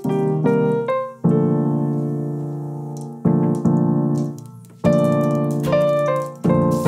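Piano music: slow struck chords and single notes, each left to ring and fade before the next.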